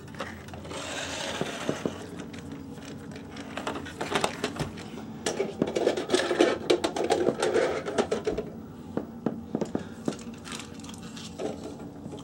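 Handling noise: many small irregular clicks and knocks with rustling and rubbing, as a plastic toy truck is handled and the handheld camera is moved about, with a louder muffled rubbing stretch in the middle.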